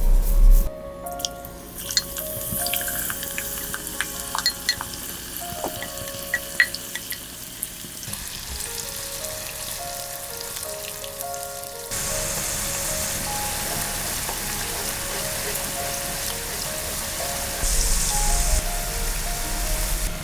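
Background music with scattered small clicks and clinks of kitchen work, then, about twelve seconds in, food starting to sizzle steadily as it fries in hot oil in a pan.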